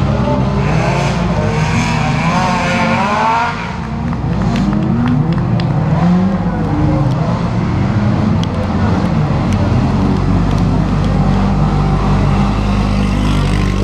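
Several dirt-track race cars' engines running around the circuit, their pitch rising and falling as they rev up and back off, over a steady low rumble.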